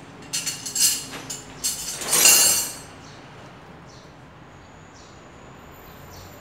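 Metal hand tools clinking and rattling off-camera, several sharp clinks followed by a louder rattle about two seconds in, as sockets are sorted through. Then it goes quiet apart from a faint steady high tone.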